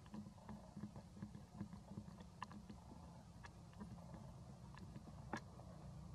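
Faint outdoor ambience: a low steady rumble with scattered soft clicks and ticks, irregularly spaced.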